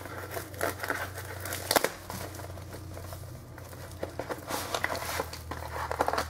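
Plastic wrapping crinkling and tearing as a sealed trading-card box is opened, with short crackly bursts of handling about a second in and again near the end.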